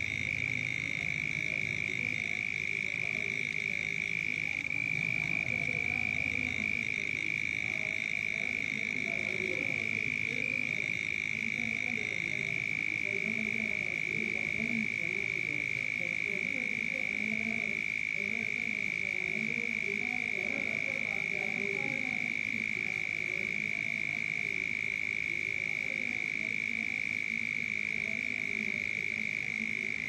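Night chorus of many frogs croaking, overlapping calls repeating without pause, over a steady high-pitched drone.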